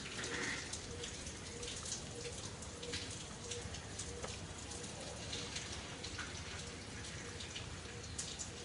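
Steady outdoor background hiss with many light, scattered ticks and patters, over a faint pulsing hum.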